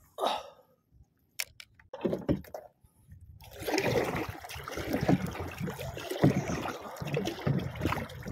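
Water sloshing and splashing against a small boat's hull as it moves. There are a few scattered knocks at first; the continuous sloshing sets in about halfway through.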